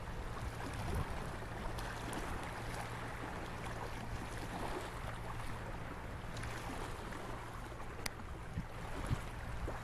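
Sea waves washing against the shore, a steady rushing hiss.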